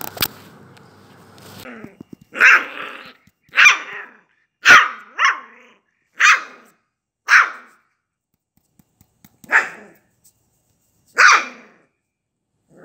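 Samoyed puppy barking: about eight short, high yaps, spaced roughly a second apart, with two coming close together about five seconds in.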